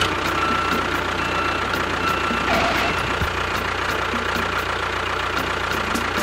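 Tractor engine idling steadily at an even pitch and level.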